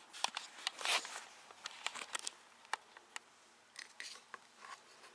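Close handling noises: a string of sharp clicks and crackles, with a short scratchy rasp about a second in.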